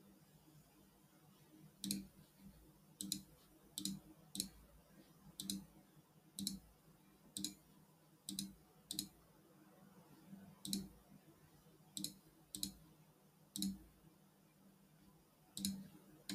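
Faint computer mouse button clicks: about fifteen single clicks at uneven intervals, some in quick pairs.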